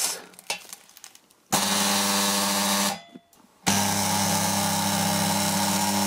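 Microwave-oven-transformer spot welder firing twice as it makes a spot weld: a loud transformer hum with a sizzling hiss at the electrodes. The first pulse lasts about a second and a half, the second nearly three seconds after a short gap.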